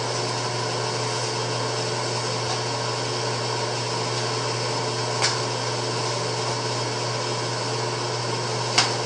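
A small motor running steadily, a constant whir with a low hum under it, with two brief clicks, one about five seconds in and one near the end.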